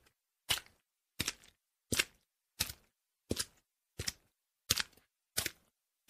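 Footsteps walking through water, each step a short splash that dies away quickly, at an even pace of about eight steps in six seconds with silence between them.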